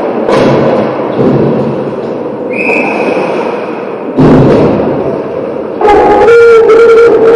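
Ice hockey play heard close to the goal: skates scraping on the ice, with sticks and puck knocking against each other. There is a sharp knock near the start and a loud hard impact about four seconds in. Near the end comes a loud, ringing scrape as players crowd the net.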